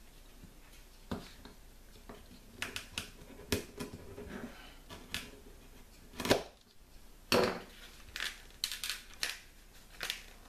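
Small hand-work noises: a pocket knife trimming and scraping a plastic spring clamp over a plastic cutting board, with scattered clicks and short scrapes. The loudest sounds are two knocks a little past the middle.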